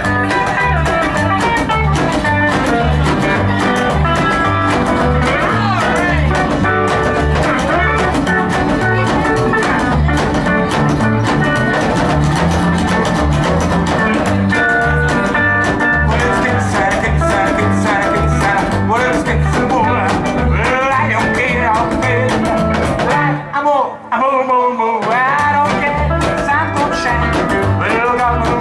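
Rockabilly band playing live without vocals: a red hollow-body electric guitar and an acoustic guitar play over an upright double bass's steady pulsing line. About 23 seconds in, the bass drops out for a couple of seconds, leaving only the guitar lines with bent notes, then the full band comes back in.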